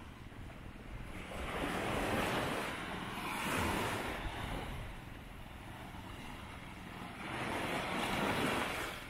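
Sea surf breaking and washing up the beach in two swells several seconds apart, with wind rumbling on the microphone.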